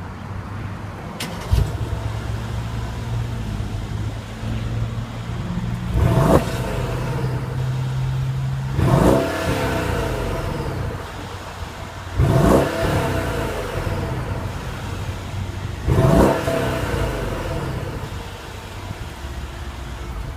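2014 Mercedes-Benz SL550's twin-turbo 4.7-litre V8 starting up about a second and a half in and settling to idle, then revved four times, each rev rising quickly and falling back to idle.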